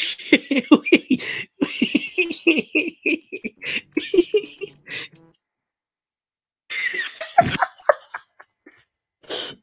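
A person laughing, a rapid run of ha-ha pulses over music, that breaks off about five seconds in; after a short silent gap, a few brief voice sounds follow.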